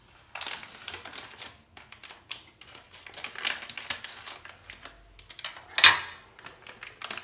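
Foil sachet of powdered whipped-cream mix crinkling and clicking as it is handled and snipped open with scissors. About six seconds in there is one loud crackle as the sachet is tipped over a bowl.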